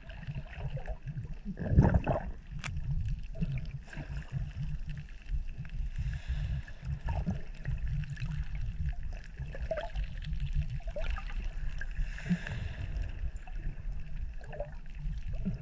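Shallow water sloshing and moving as heard underwater through a camera's waterproof housing: a low, muffled, irregular wash with scattered faint clicks, and one louder surge about two seconds in.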